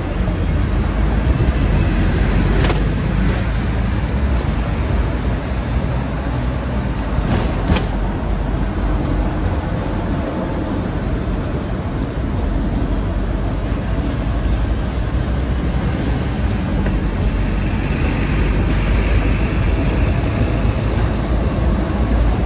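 Hong Kong double-decker tram running along its street tracks, a steady low running noise with road traffic around it. There is a sharp click about three seconds in and another about eight seconds in, and a higher hiss for a couple of seconds near the end.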